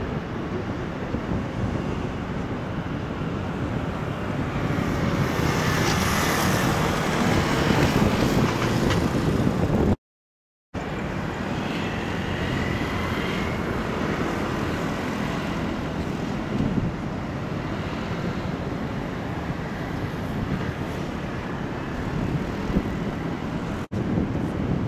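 Steady vehicle noise that cuts out completely for under a second about ten seconds in.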